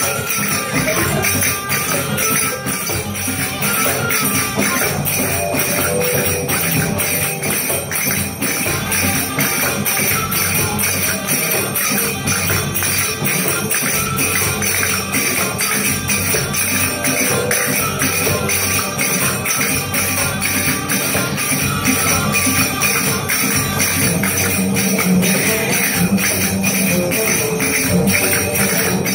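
Dance music playing with the dancers' finger cymbals (zills) clinking in a fast rhythm over it.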